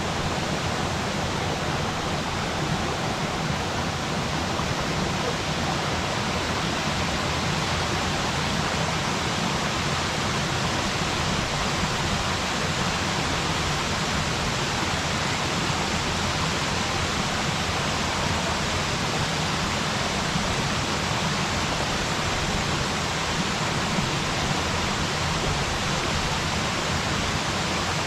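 Waterfall, a steady, unbroken rushing of falling water, even from low to high pitches.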